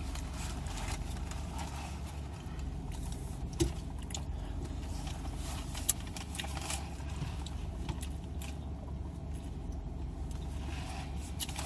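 Quiet eating: small chewing, mouth and wrapper noises over a steady low rumble, with two short knocks in the middle.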